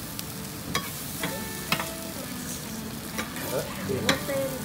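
Okonomiyaki sizzling steadily on a hot iron griddle. Metal spatulas clack and scrape against the griddle plate several times, sharp and brief.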